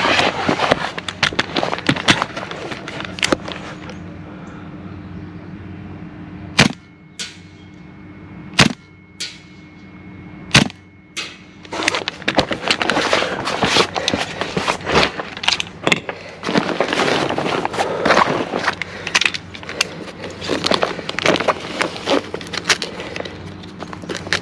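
Airsoft gunfire: rapid strings of sharp shots and clatter, broken in the middle by three single shots about two seconds apart, then rapid firing again.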